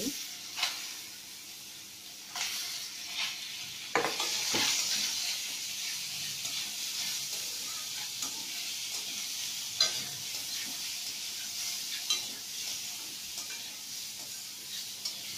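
Sliced mushrooms sizzling in a little hot oil in a metal kadai as they give up their water, with a steady hiss. A metal spatula stirs them, scraping and knocking against the pan every few seconds. The sizzle grows a little louder about four seconds in.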